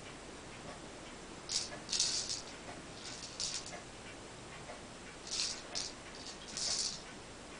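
Dry cat food rattling inside a clear plastic treat ball as a cat paws and rolls it, in about six short bursts of rattling.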